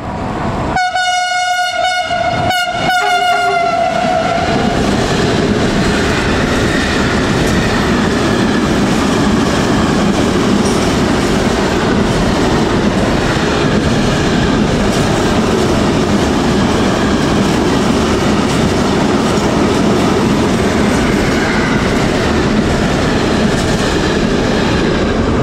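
Container freight train hauled by an E189 electric locomotive passing through a station: the locomotive's horn sounds about a second in, a single pitched tone broken once and held for about four seconds. Then comes the loud, steady noise of the wagons running past on the rails.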